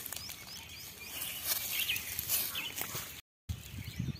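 Small birds chirping in the scrub: many short, high, rising notes repeated every fraction of a second, over faint crackles. The sound drops out completely for a moment about three quarters through.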